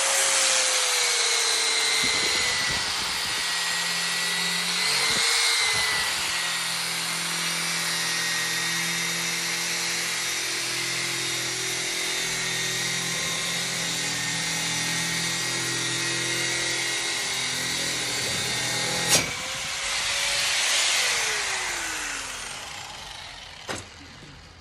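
Bauer handheld surface conditioning tool running, its abrasive drum cleaning a metal fence railing, the motor pitch dipping and rising as it is pressed on. About 19 seconds in it is switched off with a click and winds down with a falling whine.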